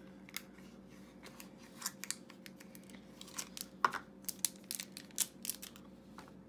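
Thin plastic cup insert and paper seal of a blind-box toy crinkling and crackling as they are handled: a string of irregular sharp crackles, the loudest about four seconds in.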